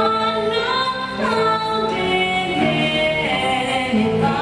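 Music with a woman singing long, held notes that step from one pitch to the next.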